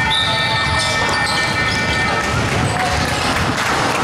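Gym scoreboard buzzer sounding one steady electronic tone that cuts off a little over two seconds in, over the general hubbub of the hall.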